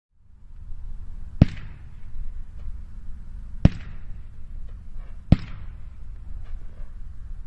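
Weco Profi Line 8.15 firework battery firing its shots, three sharp launch bangs about two seconds apart, each trailing off briefly. It is a 20-shot cake with a quiet 'Falling Leaves' effect, so there are no loud bursts overhead.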